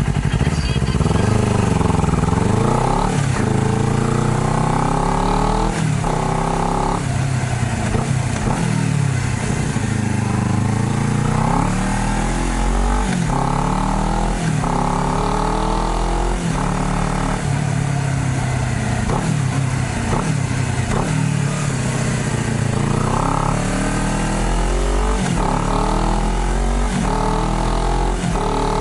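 Honda CBR250RR motorcycle engine accelerating through the gears. The pitch climbs and then drops back at each shift, over and over.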